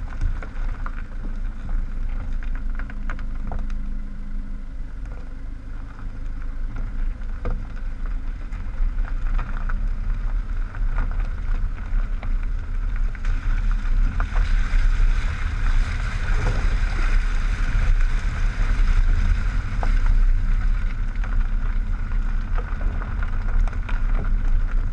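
Land Rover Freelander 2 rolling over a loose gravel track, heard from beside a front wheel: a steady low rumble of the tyre and running gear with gravel crunching and scattered sharp clicks of stones. It gets louder and rougher about halfway through.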